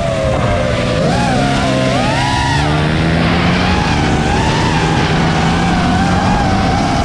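Small motorcycle and scooter engines running on a track. Their pitch rises and falls as they rev, with one sharp climb and drop about two seconds in.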